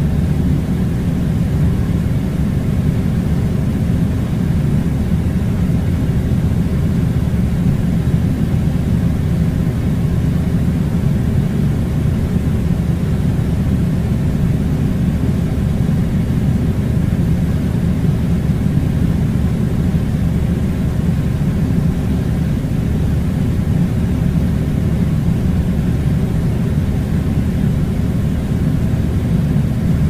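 Steady low rumbling noise that doesn't change.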